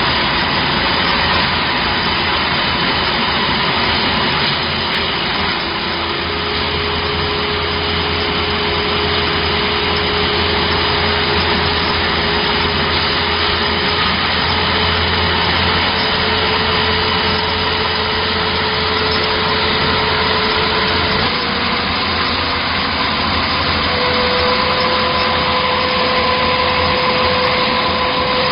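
CNC paper tube making machine running: a steady mechanical noise with a motor whine that steps up in pitch a few times.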